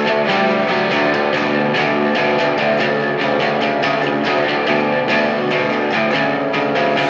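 Brit-pop song intro: a guitar strumming chords in a steady, even rhythm over bass guitar, with no vocals.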